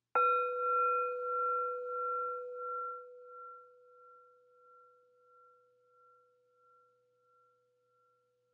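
A meditation bell struck once, its clear ringing tone wavering slowly in loudness as it fades away over several seconds. This is the second of three rings that open a guided meditation.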